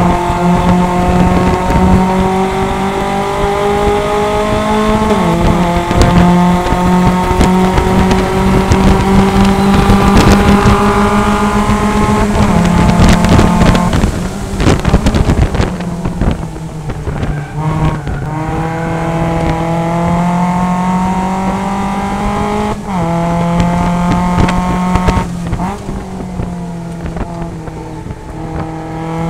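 Mazda MX-5 Cup race car's four-cylinder engine heard from inside the cockpit, pulling hard with its pitch climbing and then dropping at upshifts, about five and twelve seconds in and twice more late on. Around midway it goes off the throttle for braking, quieter with scattered clicks and clunks, then pulls again.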